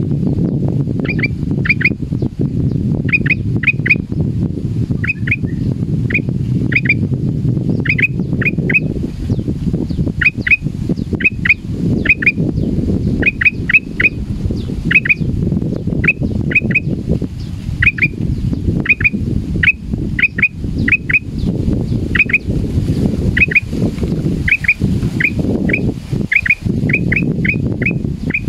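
Male black-crested bulbul (kutilang emas) giving short, sharp whistled calls in quick pairs and triplets, a group about every second, over a steady low rumble. The uploader takes these calls as a sign that the bird is frightened.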